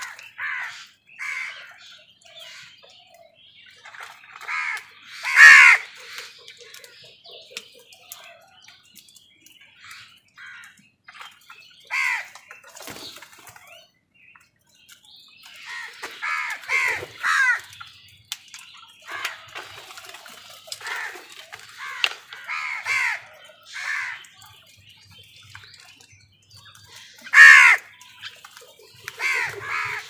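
A flock of house crows cawing: clusters of short, harsh caws come on and off throughout, loudest about five seconds in and again near the end.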